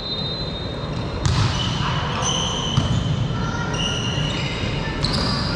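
A volleyball rally in an echoing sports hall: the ball is struck with sharp smacks about a second in and again near the end, shoes squeak briefly on the court floor in between, and crowd chatter runs under it all.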